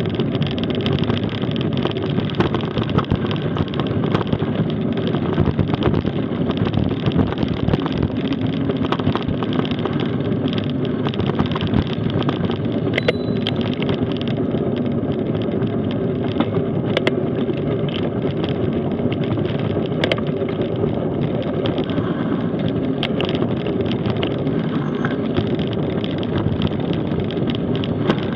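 Mountain bike rolling fast down a dirt trail: a steady rumble of knobby tyres and a rattling bike, with sharp clicks and knocks scattered throughout and wind buffeting the microphone.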